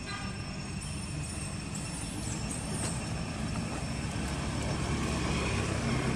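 Steady low rumbling background noise, rising slightly, with a few faint high chirps between about one and three seconds in.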